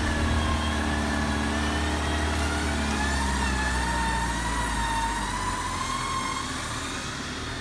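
Land Rover Defender engine running under load in first gear as the vehicle is winched out of deep mud, with a thin high whine that wavers slightly over the engine hum.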